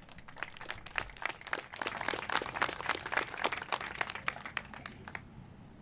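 A group of people applauding, a dense run of hand claps that dies away near the end.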